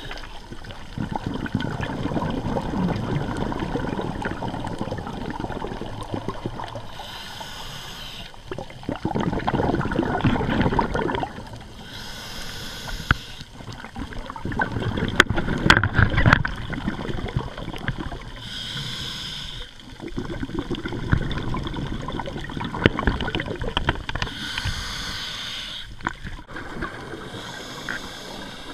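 Scuba diver breathing through a regulator underwater: a short hiss on each inhale, about every six seconds, each followed by the gurgling rumble of exhaled bubbles.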